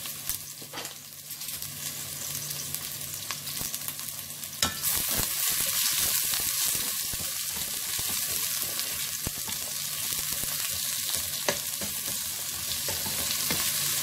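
Sliced red onions sizzling in hot oil in a metal pot, the sizzle getting louder about five seconds in. A plastic spatula stirring them makes scattered clicks and scrapes against the pot.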